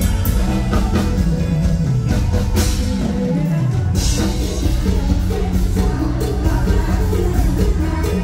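Live Thai luk thung band playing loud through a stage sound system, drum kit and bass under a woman singing lead into a handheld microphone. A long falling bass slide comes about two seconds in, before the band settles back into a steady groove.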